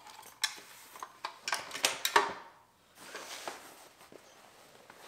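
A leather belt with a metal buckle and a metal axe scabbard handled and set down on a wooden tabletop: several clinks and knocks in the first two seconds or so, then the quieter rustle of fabric chainsaw chaps being spread out.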